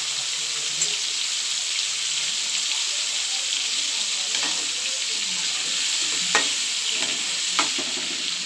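Crab pieces frying in hot oil in a kadai, a steady sizzle while a perforated ladle stirs through them. Two sharp clicks come about a second apart near the end.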